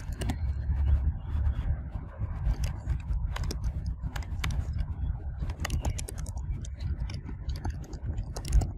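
Typing on a computer keyboard: a run of quick, irregular key clicks over a low steady rumble.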